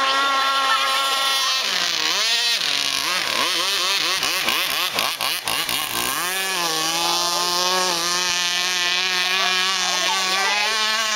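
Radio-controlled speedboat running flat out: a steady high motor whine whose pitch drops and warbles as the boat passes, about two seconds in and again about six seconds in, then holds steady at a lower pitch.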